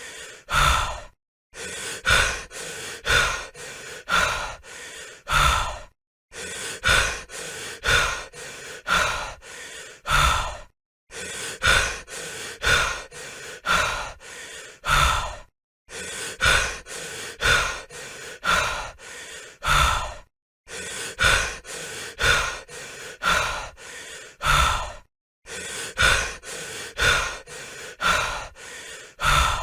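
A person breathing heavily, rapid loud breaths in and out about once a second, in short runs broken by brief silent gaps every five seconds or so.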